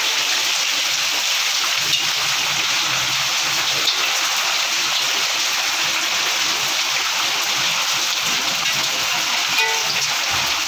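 Heavy rain mixed with hail pelting a brick courtyard and a corrugated roof: a steady, dense hiss with a few sharper ticks from hailstones.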